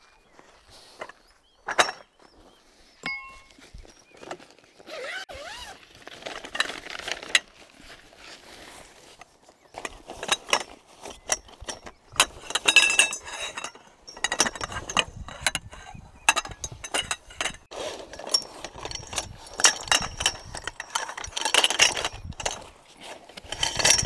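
Camping gear being handled and set up: irregular clinks, knocks and rustling throughout.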